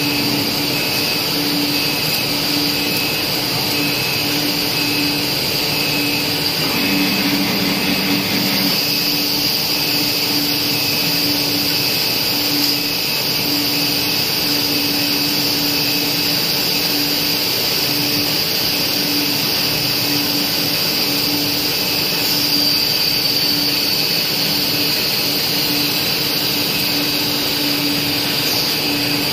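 A 2000mm cast stretch film machine running in production: a steady, loud machine hiss and hum, with a low tone pulsing on and off about once a second.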